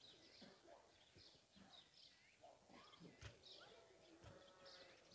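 Faint bird chirps, short and high, repeating every second or so over quiet outdoor ambience.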